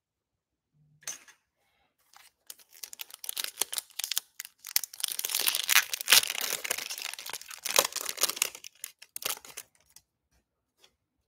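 The foil wrapper of a 2021 Panini Prizm Draft Picks football card pack being torn open and crinkled by hand. It makes a crackling rustle full of sharp crinkles, which starts about two seconds in and stops about a second before the end.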